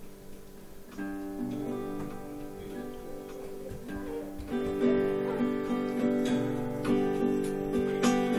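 Acoustic guitar introduction to a gospel song: chords ring out softly at first, then about four and a half seconds in a fuller, steady strum sets in.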